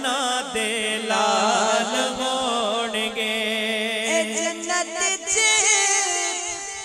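A male reciter sings a Punjabi naat into a microphone, drawing the line out in long, wavering melismatic notes. A steady low tone lies beneath, and the voice trails off near the end.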